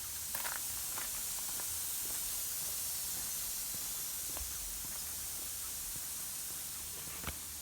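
Steady high hiss of lawn sprinkler heads spraying water while an irrigation zone runs, with a few faint clicks.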